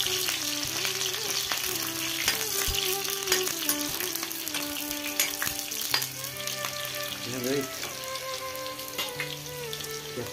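Sliced onions sizzling in hot oil in a blackened kadai, stirred with a metal spoon that gives scattered scrapes and clicks against the pan. Held musical tones that change pitch in steps sit underneath.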